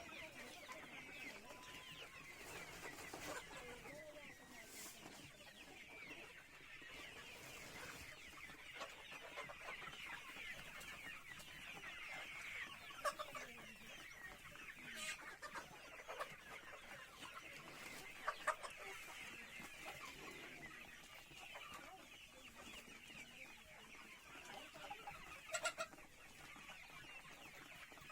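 A poultry flock clucking and chirping, a steady chorus of many short high calls, with a few brief louder sharp sounds about halfway through and near the end.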